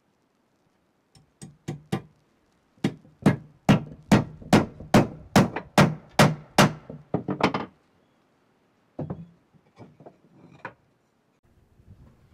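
Hammer driving a hand-forged square nail into hardwood ladder boards. Four light taps start the nail, then about a dozen heavy blows land at two to three a second, followed by a few lighter knocks.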